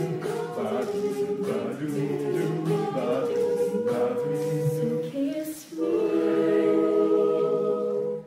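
A cappella vocal group singing in close harmony with no instruments. A little past the middle the voices briefly drop away, then the group holds a steady final chord that cuts off just before the end.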